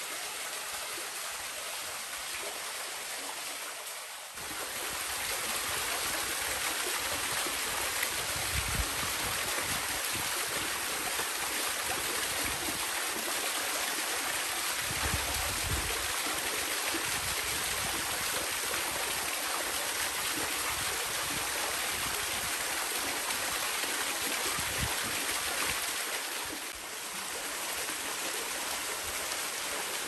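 Steady rush of water from a mountain waterfall and its stream, with a short dip in level about four seconds in and again near the end, and a few brief low rumbles.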